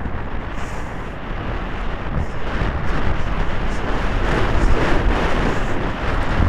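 Wind rushing over a helmet-mounted camera's microphone as the rider moves at speed on a polo pony, a rough, even rumble that grows louder about two seconds in.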